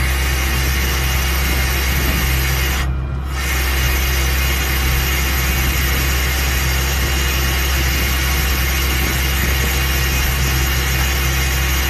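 Heavy recovery truck's diesel engine running steadily, driving the hydraulic crane as it lifts an overturned semi-trailer, with a hiss over it that cuts out briefly about three seconds in.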